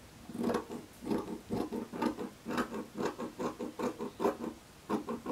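Scissors cutting through fabric in quick repeated snips, about four a second, with a short pause near the end.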